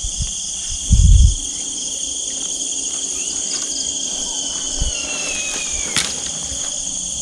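Steady, high-pitched night chorus of crickets and other insects, in several overlapping shrill bands. A low thump comes about a second in. A faint thin whistle slides down in pitch between about three and six seconds, and a sharp click comes near six seconds.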